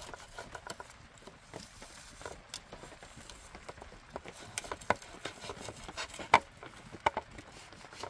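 Knife trimming raw meat and pieces dropping into an aluminium pot: sparse light taps and clicks, with a few sharper clicks in the second half.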